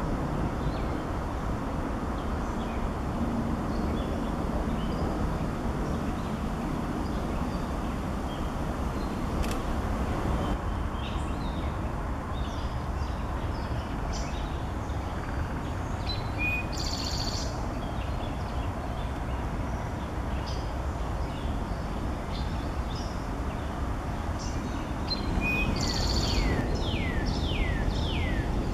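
Scattered songbird chirps and calls over a steady low background rumble. Near the end comes a quick run of about five whistled notes, each sliding down in pitch.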